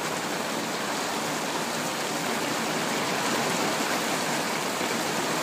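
Heavy rain pouring down steadily: a dense, even hiss.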